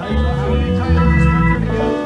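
Amplified live band music: guitar and keyboard over bass, with steady held notes. The low bass stops just before the end.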